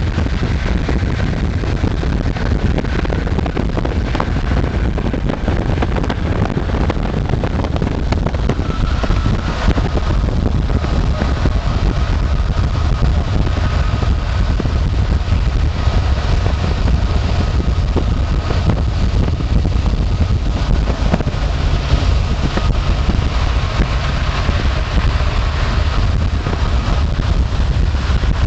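Road noise of a car driving at interstate speed: a steady low rumble of tyres and engine with some wind noise.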